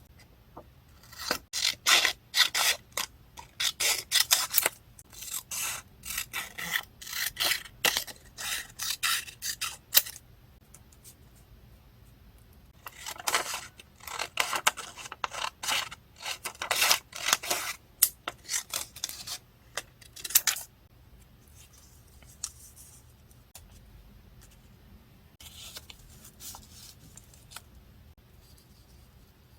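Paper craft work on a journal page: two long runs of quick rubbing and scraping strokes, several a second, followed by quieter, scattered paper handling.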